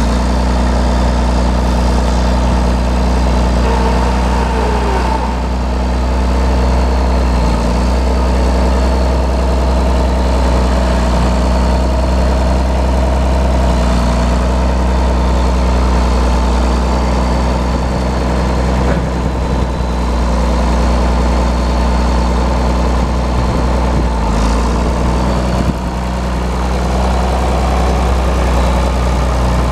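1973 John Deere 4430 tractor's turbocharged six-cylinder diesel engine idling steadily.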